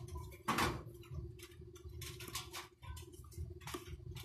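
Irregular small clicks and scrapes of metal tweezers and tiny parts against the plastic midframe of a copy Samsung Galaxy S3 as a replacement power button is fitted, with one louder click about half a second in, over a low steady hum.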